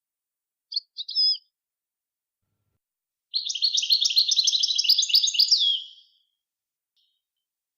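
Recorded songbird singing: two short call notes about a second in, then a fast, twittering phrase of rapid high notes lasting nearly three seconds and ending on a falling note. This is a song-training recording, played for caged birds to learn from.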